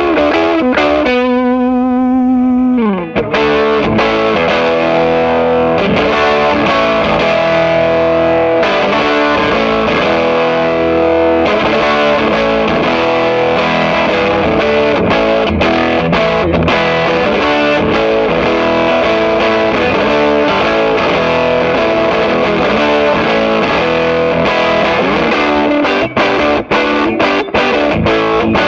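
1973 Fender Jazzmaster electric guitar played with distortion through a Swart AST Pro amp. About a second in it holds one note with vibrato, which slides down. Then come dense distorted chords and riffs, turning into short choppy stabs near the end.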